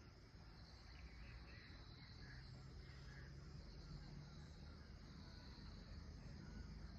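Faint outdoor ambience: a steady high insect drone, with a few faint chirps about one to three seconds in.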